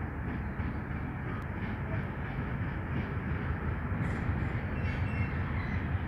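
G22-class diesel-electric locomotive hauling passenger coaches as it approaches: a steady low engine rumble mixed with the rolling of the train on the rails, growing a little louder toward the end.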